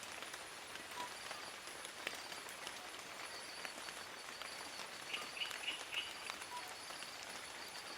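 Steady rain pattering on forest leaves, with scattered louder single drops. About five seconds in, a short run of about four quick high chirps.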